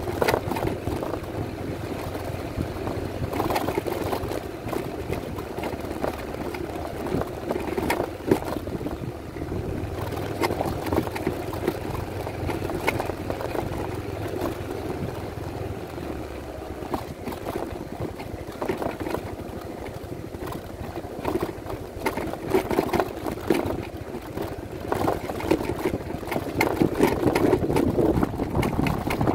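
Yamaha NMax 155 scooter's single-cylinder engine running under load, climbing a rough dirt road. Frequent short knocks and rattles come from the bumps.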